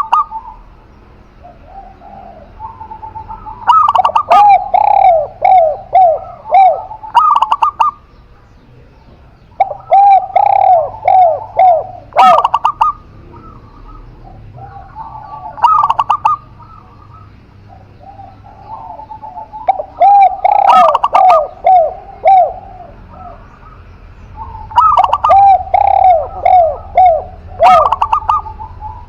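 Spotted dove and zebra dove cooing: about five phrases spaced a few seconds apart, each a run of quick repeated coo notes.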